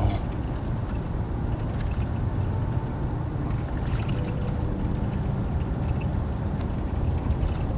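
Steady low rumble of a vehicle heard from inside its cabin, engine and body noise with no distinct events.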